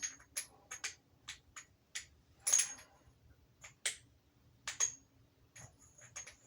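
Metal sockets clinking against each other and against tools as they are handled and swapped: a string of irregular short metallic clinks, some with a brief high ring.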